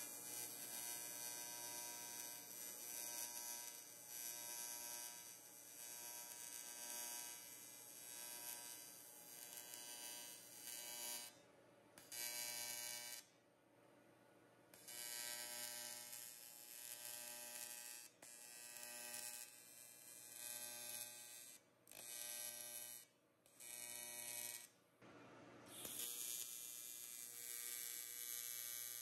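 AC TIG welding arc on an aluminum bicycle frame, a steady electric buzz with a hiss. The arc cuts off and restarts about half a dozen times, the longest break a little before halfway, as the welder switches it on and off with a push button.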